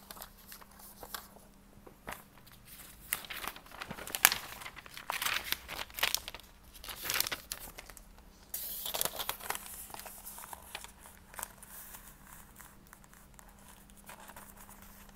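Paper pages of an exercise book being leafed through and handled: rustling and crinkling in irregular bursts, with a sharp flick of a page about four seconds in and a longer rustle a little past halfway.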